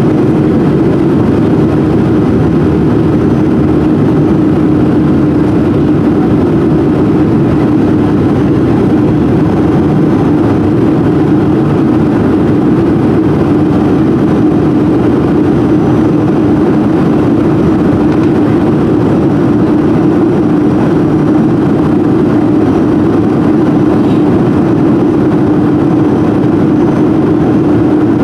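Cabin noise of a Boeing 737-400 in the climb after takeoff: its CFM56-3 turbofan engines and the rushing airflow make a loud, steady drone with a constant low hum, unchanging throughout.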